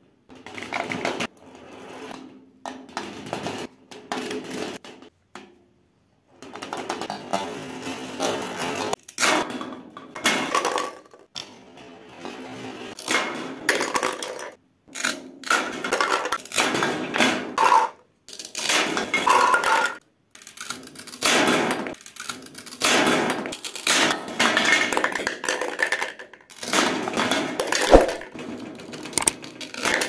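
Plastic toy fruit and vegetable pieces rolling and sliding down a grooved panel with a rattling, clattering sound, then dropping into a plastic bowl. The runs come over and over, each one to three seconds long, with brief silences between.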